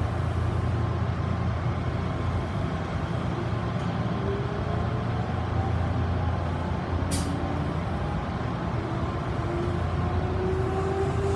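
Odakyu 2000 series electric train car DeHa 2003 running, with a steady low rumble and a traction-motor whine that rises slowly in pitch as the train gathers speed. This car is one whose motors are known to whine abnormally loudly. A brief hiss comes about seven seconds in.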